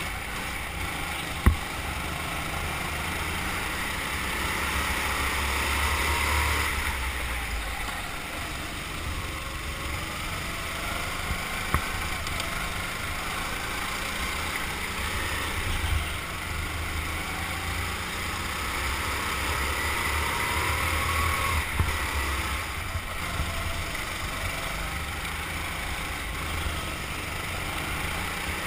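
Go-kart engine running under throttle as the kart laps, its pitch rising and falling with speed, with other karts' engines around it. A few sharp knocks cut through, the loudest about a second and a half in.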